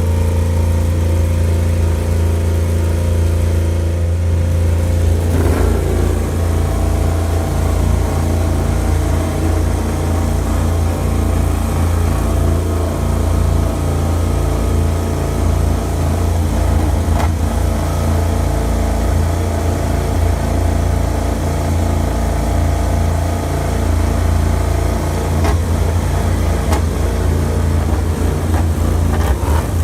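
MotoGP race motorcycle engine running steadily at a fast idle, with a short blip of the throttle about five seconds in.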